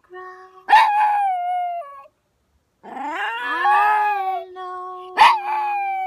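Chihuahua howling along to singing in three long howls, each starting sharply and sliding slightly down in pitch, with a woman's voice holding long notes underneath.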